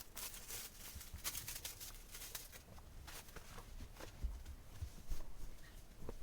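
Light clicks and taps of small objects being handled, coming thick and fast for the first two and a half seconds, then sparser.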